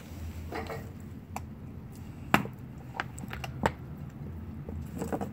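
A large shepherd dog gnawing a raw deer leg: sharp cracks and crunches of teeth on bone and hide. The loudest crack comes a little past two seconds in, three more follow over the next second or so, and a quick cluster comes near the end.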